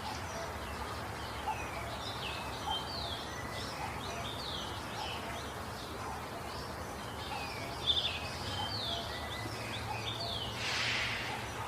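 Birds chirping in a busy run of short, quick down-slurred notes, repeating throughout over steady background hiss and a low hum, with a brief rush of noise near the end.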